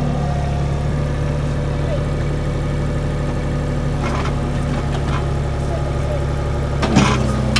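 Diesel engine of compact construction equipment running steadily, with a couple of light knocks about four and five seconds in and a louder knock near the end.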